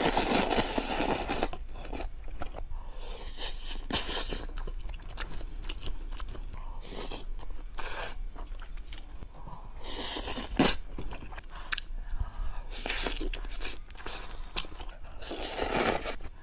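A woman slurping instant noodles in several hissing bursts about a second long, chewing with small wet clicks between them.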